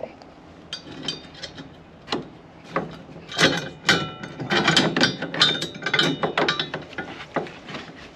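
Steel bolts and rack hardware clinking and rattling as they are handled, a run of irregular metallic clicks with short ringing tones that gets busier about three seconds in.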